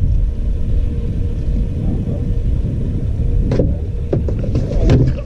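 Steady low rumble with a faint constant hum underneath. Two short knocks come about three and a half and five seconds in.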